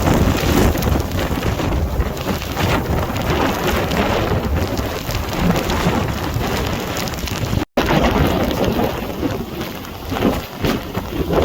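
Hurricane wind and driving rain: loud, dense noise with a deep rumble, cut by a brief dropout about two-thirds of the way through.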